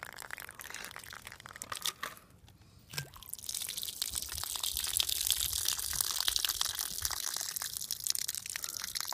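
Water running out of a glass wine bottle that a BB has cracked open. Scattered light crackles come first, then a short lull, and from about three seconds in a steady hissing trickle.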